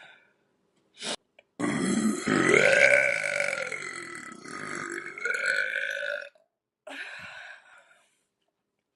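A woman burping: one long burp of about four to five seconds, starting about a second and a half in, its pitch dipping and wavering, followed by a shorter, softer sound.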